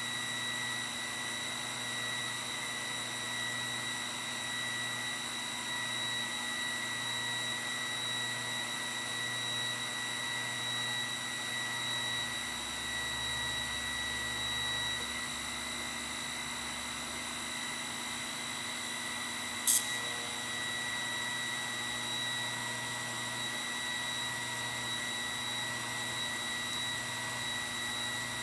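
TIG welding arc on a sheet-metal butt seam: a steady hiss with an even high whine, the heat pulsed with the foot pedal. A single sharp click about twenty seconds in.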